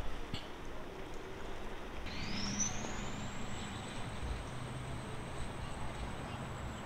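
A motor starts up about two seconds in: a low hum with a high whine that climbs in pitch and then holds steady.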